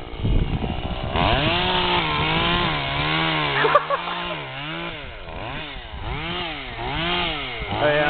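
Two-stroke chainsaw engine running at high revs, its pitch dipping and climbing again about once a second. Low rumbling fills the first second before the engine comes in strongly.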